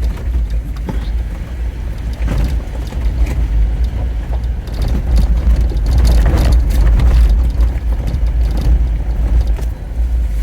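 Jeep Wrangler driving: a steady low rumble from engine and road, with scattered knocks and rattles. It grows louder for a moment about six to seven seconds in.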